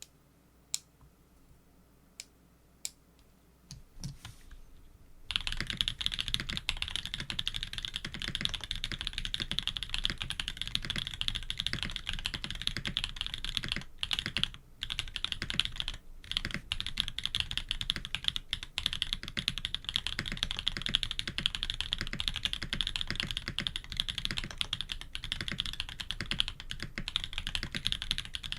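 Custom K80 mechanical keyboard with Jade Black switches, PBT keycaps and an FR4 plate being typed on: a few single keystrokes at first, then fast, continuous typing from about five seconds in, with a couple of short pauses.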